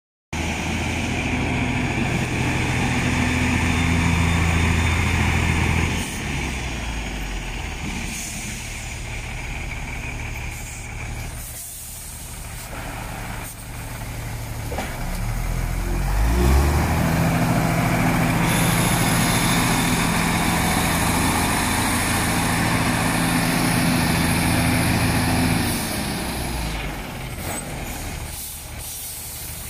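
Beiben 6x4 tractor truck's engine running with a steady low note. It drops about six seconds in, climbs back around sixteen seconds, holds steady, then eases off near twenty-six seconds.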